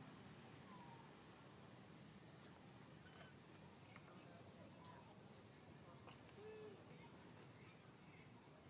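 Faint outdoor ambience: a steady high drone of insects, with a few faint short chirps now and then.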